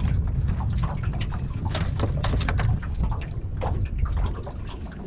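Wind rumbling on the microphone beside the river, with water lapping and many small, scattered sharp ticks and drips.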